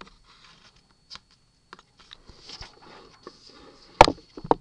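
Handling noise as paper and the camera are moved: light rustling and scattered small clicks, then two sharp knocks near the end, about half a second apart.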